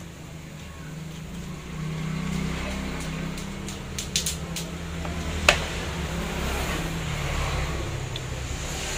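Plastic clicks and one sharp knock, about five and a half seconds in, from a partly assembled Makita HR2470 rotary hammer housing being handled and set on a workbench, over a steady low rumble.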